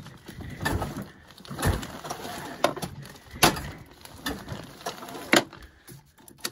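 Sharp clicks and knocks, about five of them roughly a second apart, from the recoil starter and controls of a 1992 Yamaha Bravo 250 single-cylinder snowmobile as it is worked over slowly by hand without starting.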